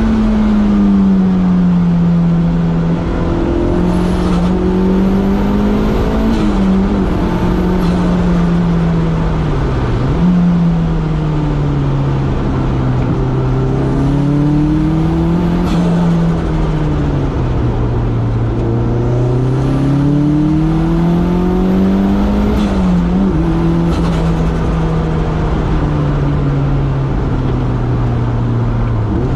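Turbocharged Toyota 3S-GTE four-cylinder in an AW11 MR2, heard onboard under hard driving: engine pitch climbs and drops repeatedly through gear changes and corners. Several brief sharp bursts cut in, about four seconds in, twice around seven seconds, near sixteen seconds and twice around twenty-three seconds.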